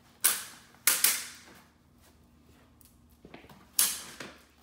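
Adjustable backrest of a folding camping lounger cot being raised into chair position, its hinge mechanism clicking sharply: a click, two in quick succession about a second in, and another near the end.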